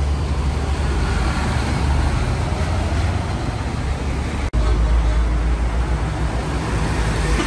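Road traffic: a box truck's diesel engine rumbling past amid motorbikes, a steady low engine rumble over tyre and road noise. A sudden momentary break about halfway through, after which the low rumble is louder.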